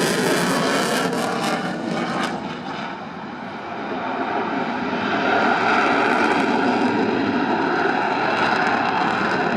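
Eurofighter Typhoon's twin Eurojet EJ200 turbofans at high power: loud, even jet noise that fades a little about three seconds in and swells again after five.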